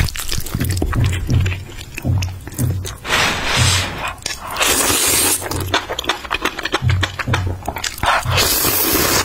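A person slurping noodles in three long slurps, with wet chewing and smacking clicks between them, over background music with a steady thumping bass beat.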